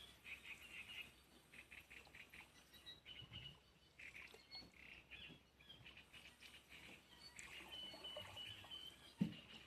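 Faint bird chirping, short high notes in quick runs and a few held twitters. A single thump near the end.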